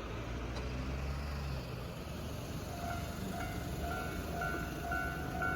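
Japanese level-crossing warning bell starting up about three seconds in: an electronic ding repeating at an even beat of about two strokes a second, which signals that a train is approaching. A low rumble fades out in the first second and a half.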